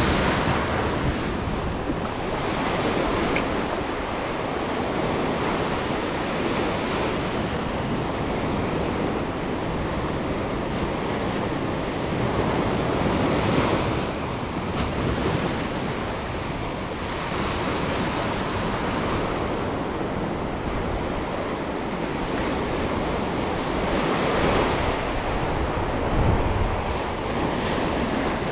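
Ocean surf breaking and washing up a sandy beach, rising and falling in loudness as each wave comes in.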